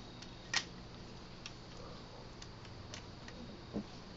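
A few light clicks of plastic Lego pieces being handled and pressed together, the sharpest about half a second in.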